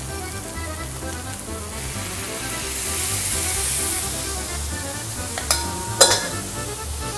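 Mushrooms and shallots sizzling in olive oil in a frying pan, the sizzle swelling about two to three seconds in as the mushroom liquid goes into the hot pan and is stirred. Two sharp metal clanks near the end, the second the louder. Background music runs underneath.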